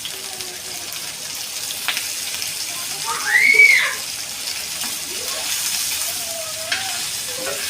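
Fish frying in hot oil, a steady high sizzle. About three and a half seconds in, a brief high-pitched tone rises and falls, the loudest moment.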